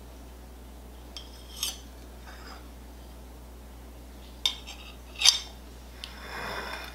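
A metal cake server clinking against ceramic plates in a few separate clinks, the loudest about five seconds in. Near the end comes a soft scraping as the server cuts down through the cheesecake.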